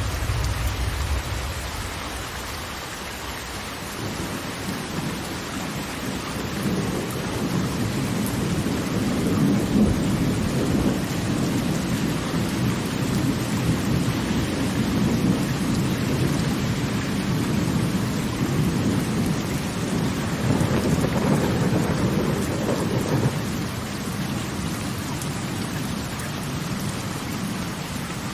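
Steady hiss of falling water, with a long low rolling rumble that builds about four seconds in and falls away near the end.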